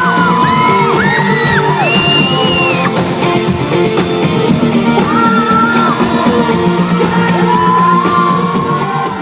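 Live pop music playing loudly through a hall's PA, with the crowd screaming and whooping over it in long, high-pitched shrieks.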